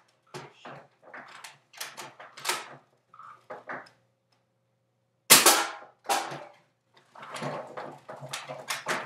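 Modified Nerf Longshot with a Big Bad Bow spring and its air restrictors removed: several clicks and clacks of the blaster being handled and primed, then one very loud, sharp shot about five seconds in, followed by more clicking and clattering.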